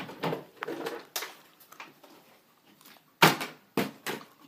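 Plastic water bottles being flipped and thudding down onto the floor: a knock about a second in, then three more in quick succession near the end, the first of those the loudest.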